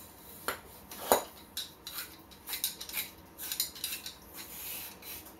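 Cleaning rod with a patch being worked in and out of a .45 caliber muzzleloader pistol barrel to dry it: the rod clicks and knocks against the metal with some rubbing in between, with the sharpest knock about a second in.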